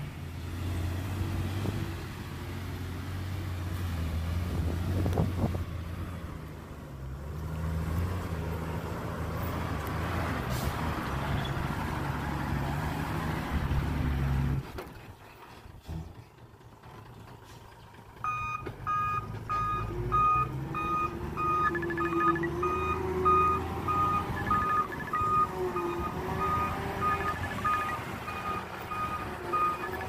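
Heavy diesel earthmoving machinery running steadily, cutting off abruptly about halfway through. A few seconds later a vehicle's reversing alarm starts beeping rapidly, about two beeps a second, over a running engine.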